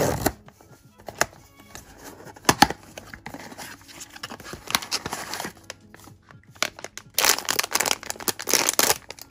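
A cardboard blind box's tear tab is ripped open at the start, followed by scattered rustles and a few sharp taps as the flaps open and paper packing comes out. From about seven seconds in, a sealed plastic bag crinkles loudly as it is handled.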